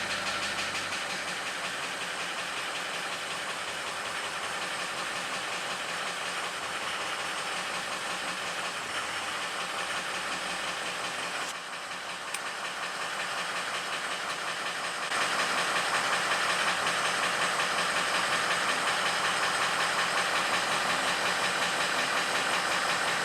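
Ford 6.0 Powerstroke V8 turbo diesel idling steadily just after being started following an oil cooler and high-pressure oil pump job. It gets somewhat louder about two-thirds of the way through.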